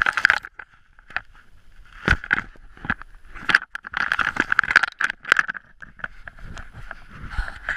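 Camera handling noise: rubbing, scraping and knocks as the camera is moved and carried, with many sharp knocks scattered through.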